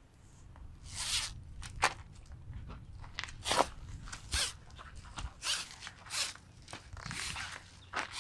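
Rustling and crinkling as the awning screen material and its packaging are handled, in a series of short scrapes about once every half second to a second.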